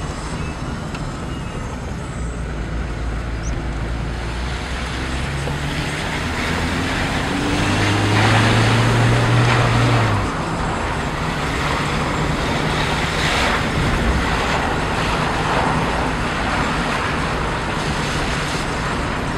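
Car engine and tyre noise heard from inside the cabin while driving a narrow lane. The engine note climbs and grows louder for a few seconds, then drops suddenly about ten seconds in and settles back to a steady run.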